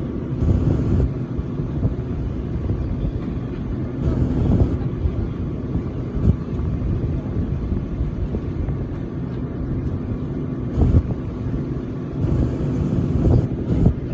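Steady low rumble with a faint steady hum from a car idling, heard from inside the cabin.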